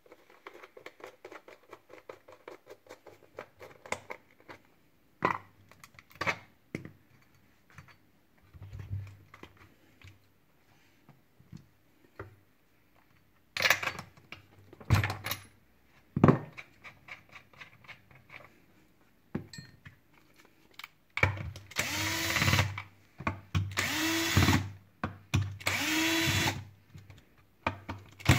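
A cordless drill-driver runs in four short bursts of about a second each near the end, each spinning up quickly to a steady whine. Before that come clicks, rattles and knocks of hand tools and plastic parts being handled on a chainsaw's opened housing, with a quick run of ticking in the first few seconds.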